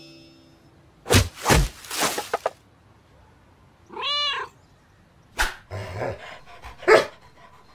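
A cat's single meow about four seconds in, rising and then falling in pitch, with a few short thumps and knocks before and after it.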